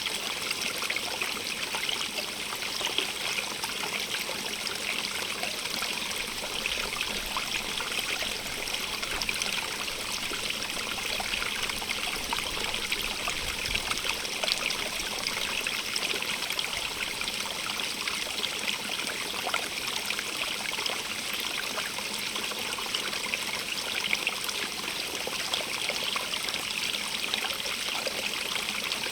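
Running water in a stream, a steady splashing and trickling rush with many small splashes and no change in level.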